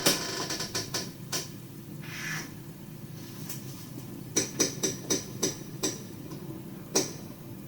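A series of sharp knocks or clicks, several in the first second and a half and a quick run of about six between four and a half and six seconds, with one more near the end, over a steady low hum.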